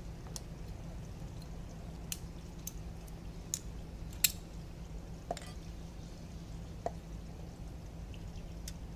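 Metal screw cap of a glass sake bottle being twisted open by hand, giving scattered sharp clicks and ticks, the loudest about four seconds in, over a steady low hum.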